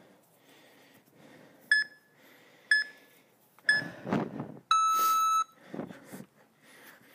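Interval timer on a tablet beeping the end of a rest period: three short beeps about a second apart, then one longer, lower beep that marks the start of the next 30-second work interval.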